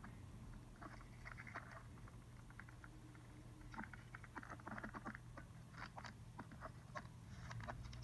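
Faint, irregular scuffs and crunches of a person crawling through a tight cave passage, coming in short clusters over a low steady hum.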